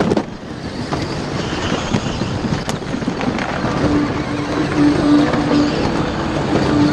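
Power Wheels ride-on toy car driving: a continuous rattling rumble, with a steady hum joining in about four seconds in.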